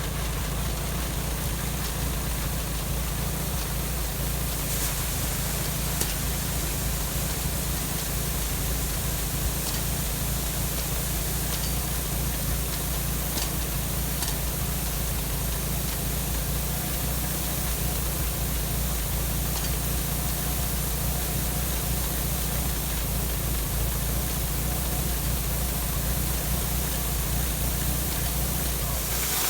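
Combine harvester running steadily while cutting wheat: a constant low engine drone under an even hiss.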